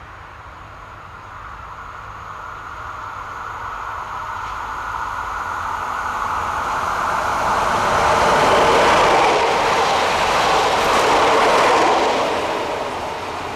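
Alstom Régiolis regional multiple unit approaching along the track, running past close by and then moving away. Its running noise builds steadily, is loudest for a few seconds past the middle, then falls off near the end.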